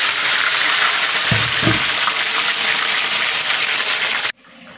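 Whole mojarras (tilapia) deep-frying in a skillet of hot oil: a loud, steady sizzle of freshly added fish. It cuts off suddenly near the end.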